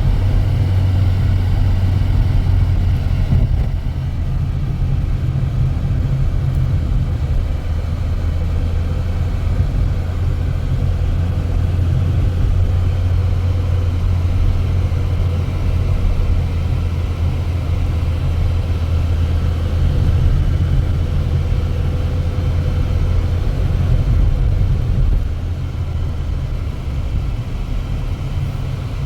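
Steady low engine rumble of a motor vehicle running, dipping slightly in level a few seconds in and again near the end.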